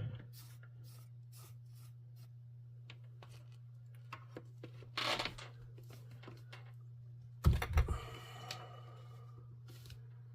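Small clicks and taps of hands and tools at a soldering bench as a wire is unsoldered from a connector, over a steady low hum. A short hiss comes about five seconds in, and a louder thump and clatter at about seven and a half seconds.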